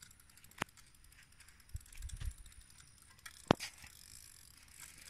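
Spinning reel being cranked on a fishing rod, a fine, quick ticking, with a sharp click about half a second in and a louder click a little past halfway, and a few low handling thumps in between.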